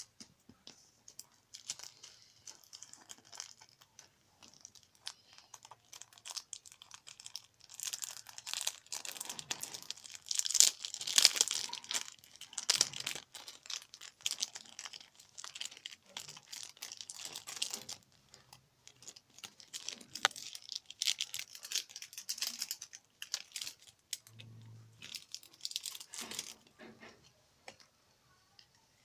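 Clear plastic packaging sleeve crinkling and rustling as it is handled and pulled open, in two long stretches of crackling with a short pause between.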